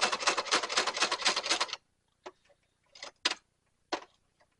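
Sewing machine stitching leather at a fast, even rate of about ten stitches a second, stopping about two seconds in with the needle left down in the work. A few separate clicks and knocks follow, as the machine and the belt are handled.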